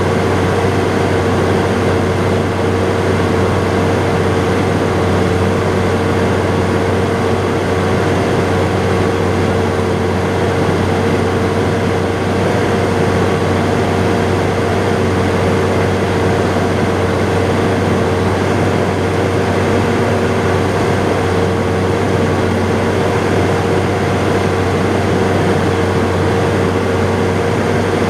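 John Deere 7800 tractor's six-cylinder turbodiesel running at a steady speed, heard from inside the cab: an even low drone with a constant higher tone over it.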